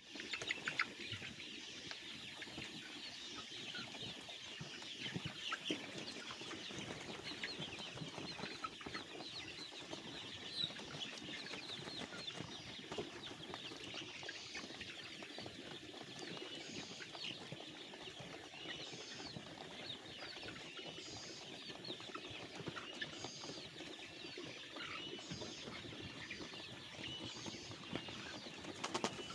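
A large flock of 45-day-old cockerels in a poultry house calling all at once: a dense, unbroken chatter of many short, high calls overlapping.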